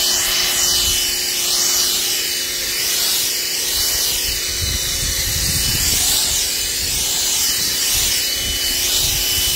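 Portland 1750 PSI electric pressure washer running with a foam cannon attached, spraying soap in a steady loud hiss over the motor and pump's steady high whine and hum.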